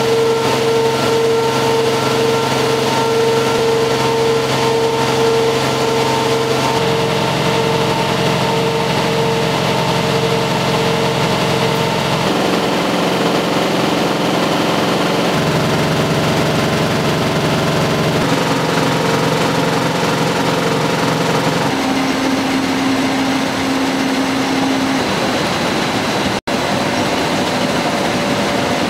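Newspaper printing press and its delivery conveyor running: a steady, loud mechanical drone with held hum tones. The pitch and mix of the drone change abruptly several times, and it drops out for an instant about 26 seconds in.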